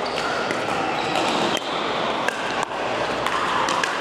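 Pickleball paddles striking a hollow plastic pickleball: a string of sharp pops, roughly one or two a second, over steady background noise.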